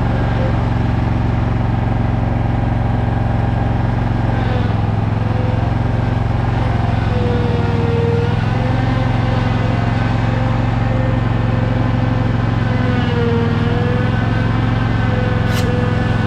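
A motor or engine running steadily, a low drone whose higher tone sags briefly every few seconds, as if under changing load.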